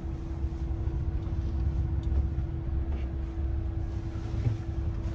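Mahindra Thar driving, heard from inside the cabin: a steady low engine and road rumble with a constant hum.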